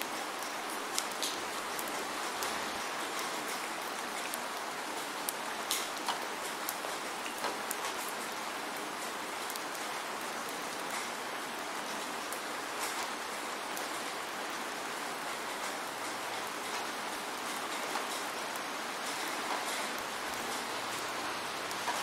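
Waterfall's falling water splashing into its pool: a steady hiss with many small sharp splashes and drips scattered through it.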